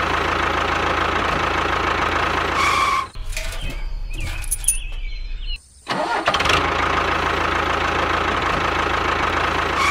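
Engine sound effect laid over the picture, running steadily, looping the same few seconds. About 3 s in it switches to a duller, deeper stretch, dips briefly near 5.5 s, then the first part repeats.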